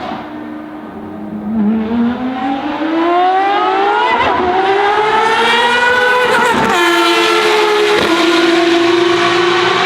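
Ferrari FXX Evoluzione V12 accelerating, the engine note climbing steadily for about five seconds, then dropping at a gearshift and holding a loud, steady high note. There is a short bang right at the start.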